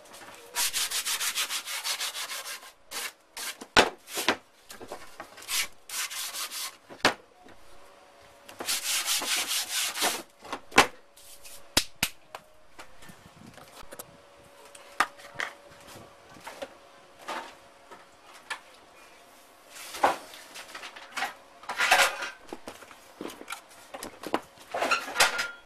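Hands rubbing and scraping over a cured fiberglass-covered pipe, in two spells of steady scratchy rubbing of about two seconds each. Scattered knocks and short scrapes follow as parts are handled on a wooden bench.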